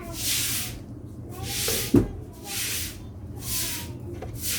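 Short hissing bursts, about one a second, each about half a second long, with a single sharp click about two seconds in, over a low steady hum.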